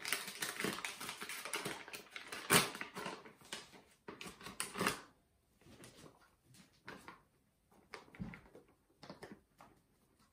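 Paper flour bag crinkling and rustling as it is handled for about five seconds, then fainter scattered taps and rustles as flour is shaken from the bag onto a cloth.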